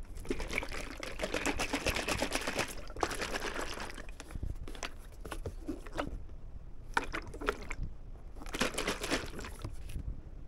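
Liquid being poured, with crackling, in several bursts: a long one of about three seconds at the start, then shorter ones around the middle and near the end.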